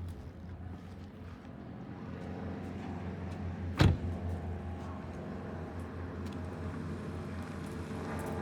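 A car engine running steadily with a low hum, and one loud thump a little before the middle.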